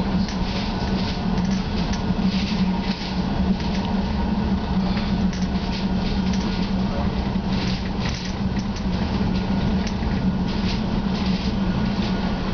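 Cabin noise inside a CAF Urbos A35 tram: a steady low hum with rumble from the car.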